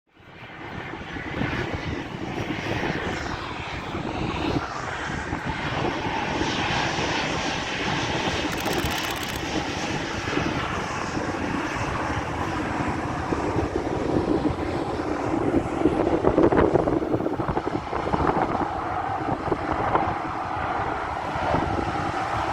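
Boeing 737-800's CFM56 jet engines, a loud steady rush that swells to its loudest about sixteen seconds in.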